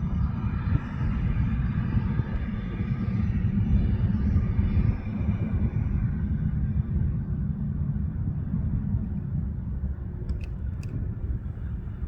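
Cessna CitationJet CJ3+ twin turbofan business jet, its engine sound fading away over the first half, over a steady low rumble. Two sharp clicks about ten seconds in.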